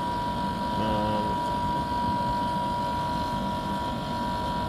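Outdoor air-conditioner condensing unit running: a steady rumble from the compressor and fan with a steady high whine over it.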